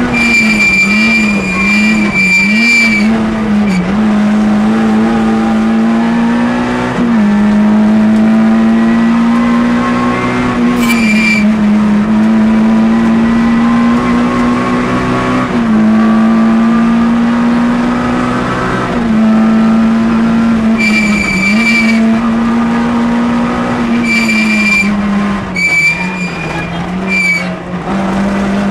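Citroën Saxo A6 rally car's four-cylinder engine at high revs, heard from inside the cabin, its pitch climbing and then stepping down at each gear change. Tyres squeal in short bursts through the corners, about four times.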